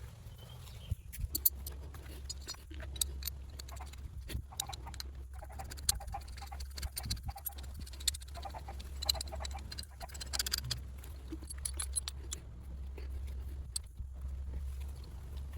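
Scattered short clicks and light clinks, as of tools and metal parts being handled during hub bearing work, over a steady low hum.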